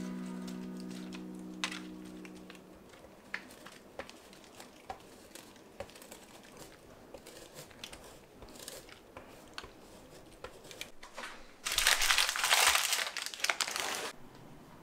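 Paper crinkling and rustling loudly for about two seconds near the end, as the paper sheet under a tortilla pizza is handled. Before that there are only faint taps and light rustles of toppings being added, and a last music note dies away at the start.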